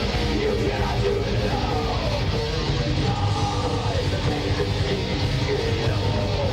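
Heavy metal music with distorted electric guitar and bass guitar, playing loud and steady without a break.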